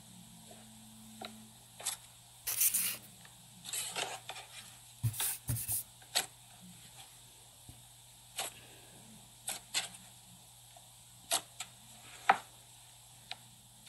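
Fluffy slime being stretched, pressed and pulled apart by hand, giving scattered sharp clicks and several short noisy bursts, busiest in the middle, over a faint steady hum.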